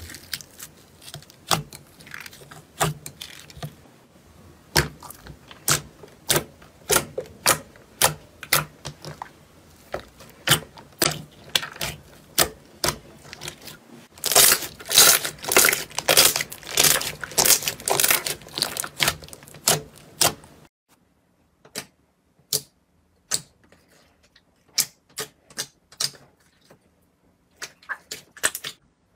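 Slime clicking and popping as fingers poke, press and squeeze it, a quick run of sharp separate pops. About halfway through comes a dense stretch of loud crackling, and after that the pops turn sparser and quieter.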